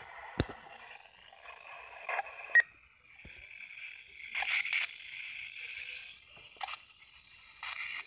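Dead air on a broadcast during technical difficulties: faint static hiss with scattered clicks, a sharp click just after the start and a short high beep about two and a half seconds in.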